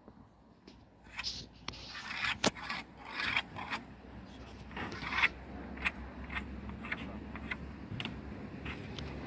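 Plywood formwork sheets being handled and marked out on sawhorses: irregular scraping and rubbing of plywood, with scattered sharp taps, the loudest about two and a half seconds in and about five seconds in.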